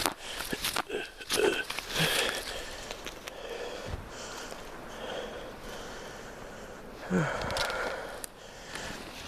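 A person breathing hard and sniffing, with a short voiced sound about seven seconds in. Scattered clicks and rustling come in the first couple of seconds.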